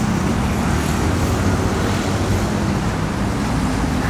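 Steady road traffic noise with a low rumble, picked up by a camera's built-in microphone without an external shotgun mic.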